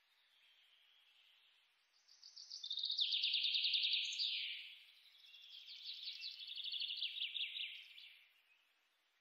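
Felt-tip marker rasping across paper in quick back-and-forth colouring strokes, in two bouts: a louder one starting about two seconds in, and a slightly quieter one from about five to eight seconds.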